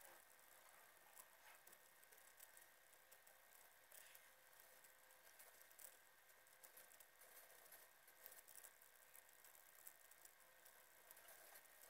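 Near silence: faint hiss with scattered faint ticks.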